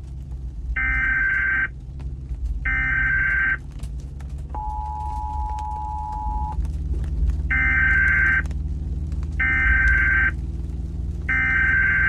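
Emergency Alert System data bursts and attention signal: two short screeching digital header bursts, then the steady two-note EAS attention tone for about two seconds, then three more identical bursts about a second apart. A steady low car-cabin rumble runs underneath.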